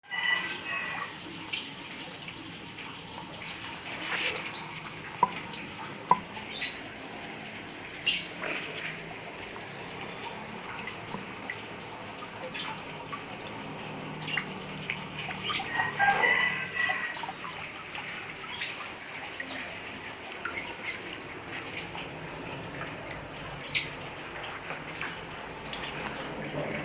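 Outdoor ambience: short, sharp high bird chirps scattered over a steady background hiss, with a longer, lower animal call near the middle.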